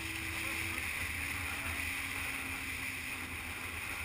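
Motorcycle riding at steady highway speed: a constant engine drone mixed with wind rushing past, with the engine note dropping slightly about a second in.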